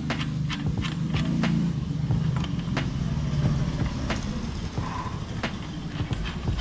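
Light, irregular clicks and taps of hand tools and metal parts on the scooter's engine hanger, over a low, steady engine hum.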